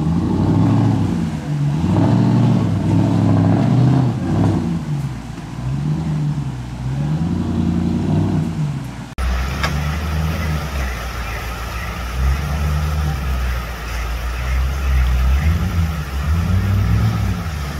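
Off-road 4x4's engine revving up and down again and again, its pitch rising and falling every second or two. About nine seconds in the sound cuts abruptly to another stretch of engine revving over a steady low rumble.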